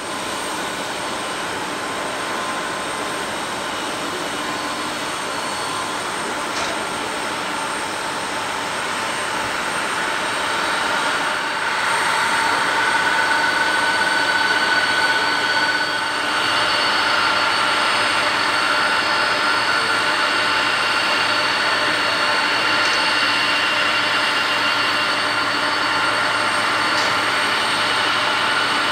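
Boeing 747-400's four turbofan jet engines running at taxi power: a steady rushing noise with high whining tones, growing louder about ten seconds in as the aircraft comes closer.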